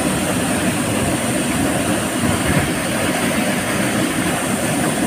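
Waterfall's falling water making a loud, steady roar that holds unchanged throughout.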